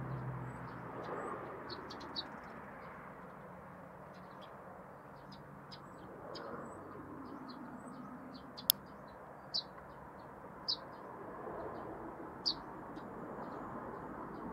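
Small birds chirping: many short high chirps scattered throughout, a few louder ones in the second half, over a steady low background rumble. One sharp click sounds just past halfway.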